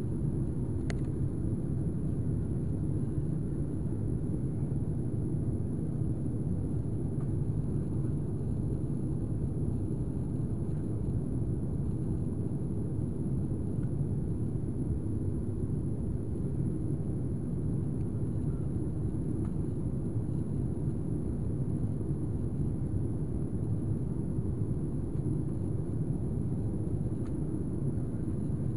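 Steady low rumble of cabin noise inside an airliner in flight, jet engines and rushing air heard through the fuselage.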